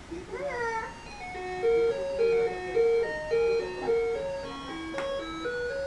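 A ride-on toy car's built-in electronic sound unit playing: a short warbling sound effect, then a simple electronic jingle of short, evenly held single notes.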